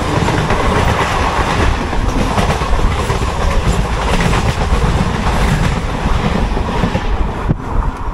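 Local passenger train running at speed, heard from inside the coach: a loud, steady rumble and rattle of wheels on the track.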